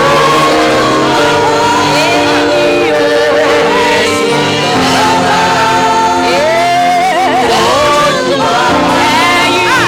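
Gospel worship singing with keyboard accompaniment: a lead singer's voice wavers over steady held chords, with the congregation joining in, in a large hall.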